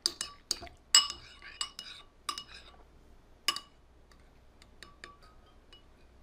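Spoon clinking against a ceramic bowl while stirring: a quick run of sharp, ringing clinks over the first three seconds, one more loud clink about three and a half seconds in, then a few faint taps.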